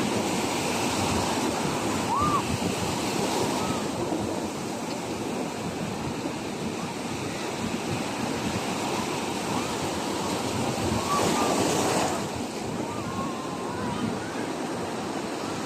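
Ocean surf washing onto a shore at night: a continuous rushing wash of waves that swells louder at the start and again about eleven seconds in.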